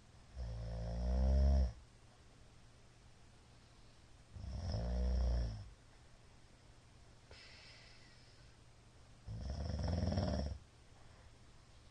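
A middle-aged man snoring loudly in his sleep: three snores, each lasting about a second and a half and growing louder toward its end, coming every four to five seconds. A faint breath sounds between the second and third.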